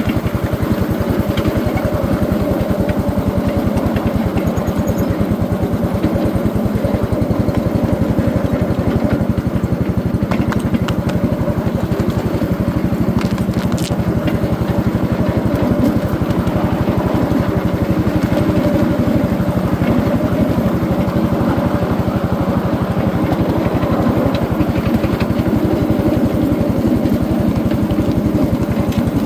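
Small gasoline engine of a ride-on backyard-railroad train running steadily at an even speed as it hauls a loaded gondola car along the track.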